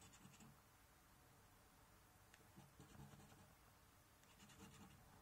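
Faint scratching of a coin rubbing the coating off a scratchcard, in short strokes near the start and again near the end.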